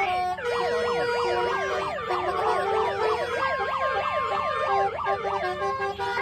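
Telolet basuri musical horn playing: several tones swoop rapidly up and down in a siren-like pattern over steady held notes.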